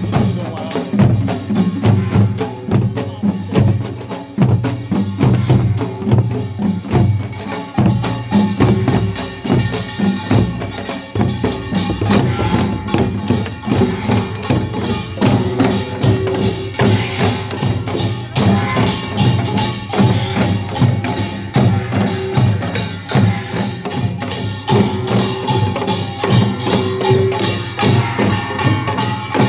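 Korean pungmul farmers' band playing a fast, dense rhythm on kkwaenggwari small gongs, janggu hourglass drums and buk barrel drums, strokes tightly packed without a break.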